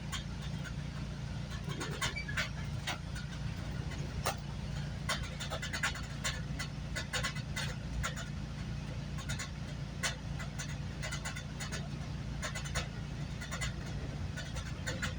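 Steady low rumble of a moving GO commuter train heard from inside the coach, with frequent irregular clicks and rattles throughout.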